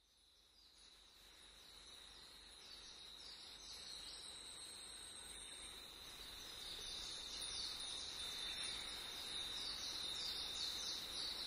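Faint forest ambience: a steady high-pitched trill like an insect's, with birds calling in many short, high, falling notes over it. It fades in after a moment of silence and slowly grows louder.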